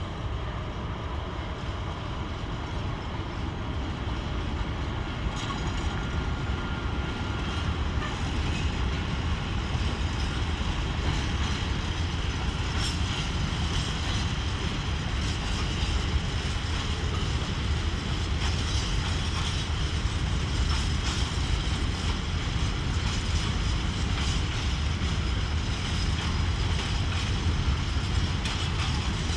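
SM42 diesel shunting locomotive running with a steady low engine hum as it moves a long rake of freight wagons, growing louder over the first several seconds. From about the middle on, the wagons' wheels clatter and click over the track.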